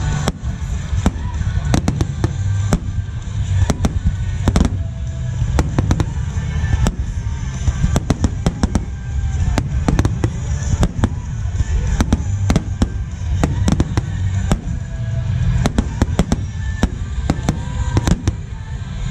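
Finale barrage of aerial firework shells bursting: dozens of sharp bangs in quick, irregular succession over a continuous deep rumble.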